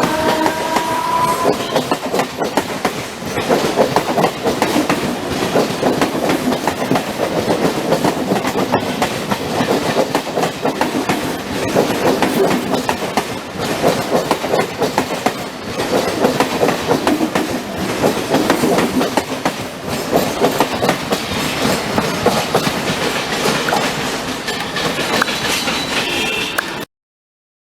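Train running along the track, its wheels knocking over rail joints in a continuous clickety-clack. A tone rises in pitch and fades in the first second or so. The sound cuts off abruptly near the end.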